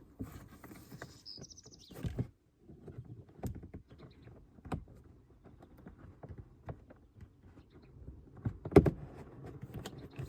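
Scattered clicks and knocks of hands and tools working plastic interior trim in a car footwell, with a brief high squeak about a second in and one louder knock near the end.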